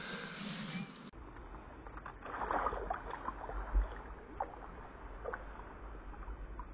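Shallow swamp water splashing and sloshing as a chain pickerel is lowered into it by hand and released. The splashing is strongest about two to three seconds in, followed by scattered small drips and ticks.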